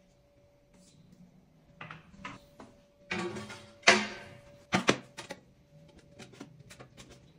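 Pieces of tile handled on the back of a porcelain tile: a scrape about three seconds in ending in a sharp clack, then a few lighter clicks as more pieces are set down.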